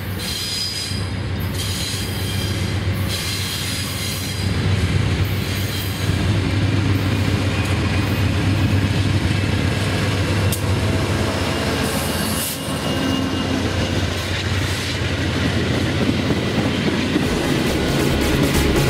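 VIA Rail passenger train led by a GE P42DC diesel locomotive passing at speed: a steady diesel engine drone and the rumble of wheels on the rails, growing louder over the first six seconds as the locomotive draws level, then the coaches rolling by.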